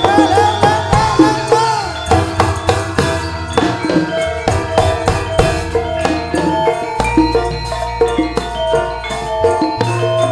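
Javanese gamelan ensemble playing campursari: bronze metallophones (saron) struck with mallets in quick notes over kendang hand drum strokes that bend in pitch, with deep sustained low notes underneath.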